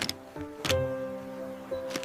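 Background music with steady held notes, cut by a few sharp clicks, the loudest about a third of the way in.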